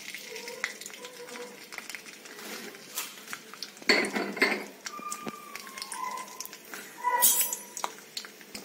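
Metal kitchenware clinking and knocking against an iron kadai, scattered light clicks with louder clatters about four seconds in and again near seven seconds.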